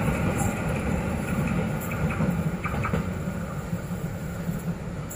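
Freight train of hopper wagons rolling away on the rails, its rumble fading steadily, with a few light clicks about two to three seconds in.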